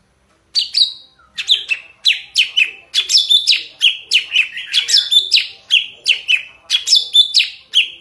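Caged leafbird (cucak ranting) singing a rapid, continuous string of clear, down-slurring whistled notes that starts about half a second in.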